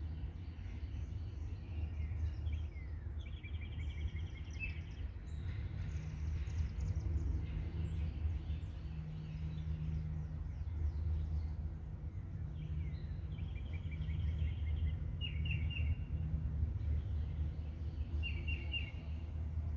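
Small birds chirping outdoors: short trills a few seconds in and again past the middle, then quick chirps near the end, over a steady low rumble and a thin steady high tone.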